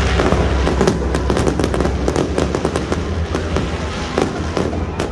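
Barrage of aerial fireworks: many sharp bangs and crackles in quick succession over a steady low rumble.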